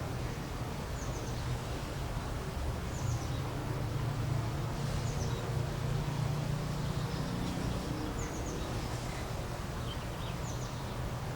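Outdoor nature ambience: short high chirps in quick groups of two or three, recurring every second or two, over a steady low hum.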